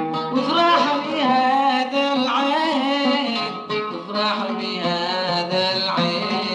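A solo voice singing an Arabic song in long, gliding, ornamented lines over plucked-string accompaniment.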